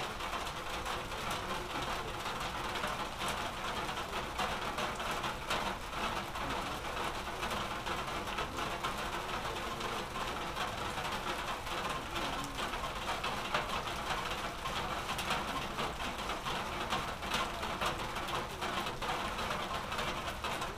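Steady rain with a dense patter of drops striking nearby surfaces.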